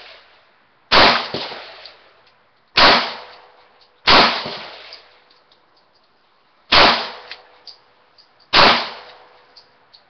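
Five gunshots fired one after another at uneven intervals, one to two and a half seconds apart, each followed by a short echoing decay.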